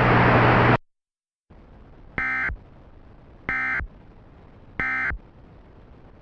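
Loud static hiss that cuts off sharply under a second in, then three short, identical electronic data bursts about 1.3 s apart over faint hiss: the Emergency Alert System end-of-message (EOM) tones that signal the alert is over.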